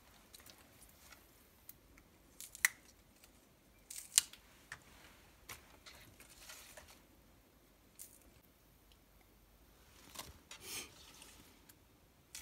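Crisp water spinach (morning glory) stems snapped by hand: a few sharp, separate snaps a second or more apart, with soft rustling of leaves between them.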